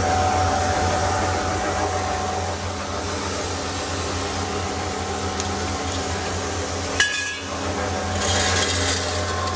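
Corn grinding machine's motor and blower running with a steady hum, while metal buckets and the discharge pipe are handled with clanks. A sharp metallic knock comes about seven seconds in, followed by a brief rush of noise.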